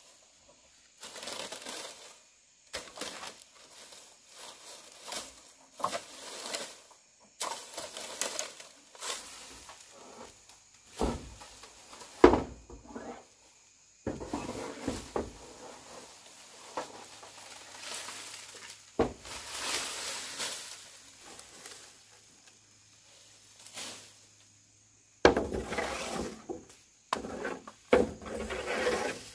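Irregular knocking, clattering and crunching of hard materials being handled and broken, with one sharp, loud knock about twelve seconds in and a few brief silent gaps.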